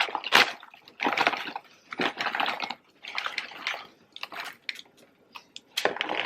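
Popped microwave popcorn being dumped in: rustling in several bursts over the first few seconds, then scattered light ticks as the last pieces drop, and a final rustle near the end.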